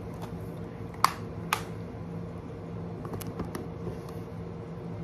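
Plastic Blu-ray cases being handled: two sharp clicks about a second in as a case snaps shut, then a few lighter clicks, over the steady hum of a ceiling fan.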